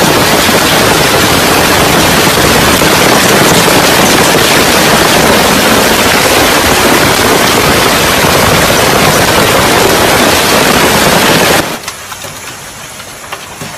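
Heavy rain and hail pelting down in a severe storm, a loud dense hiss. About twelve seconds in it cuts abruptly to a quieter stretch of steady rain with a few sharp hail hits.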